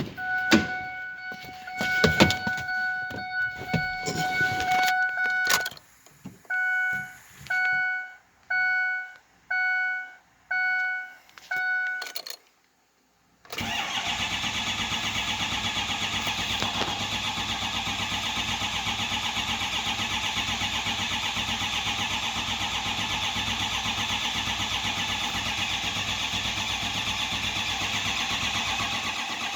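A steady electronic chime tone with a few clicks, then six short beeps about a second apart. After a brief silence, the 6.0 Power Stroke V8 diesel is cranked over by its starter, a steady fast rhythmic churning that keeps going without settling into a run, as in its crank-no-start fault.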